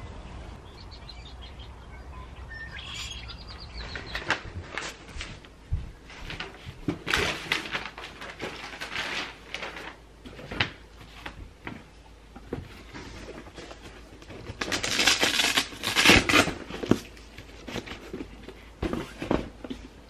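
Birds chirping faintly for the first few seconds, then the rustling and scraping of a fabric storage box being unfolded and handled. The handling comes in irregular bursts, loudest in a long rasp about three-quarters of the way through.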